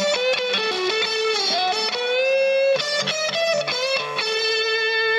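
Electric guitar, a Stratocaster-style guitar played through a Vox combo amplifier: a lead line of single notes with string bends, ending on one long held note.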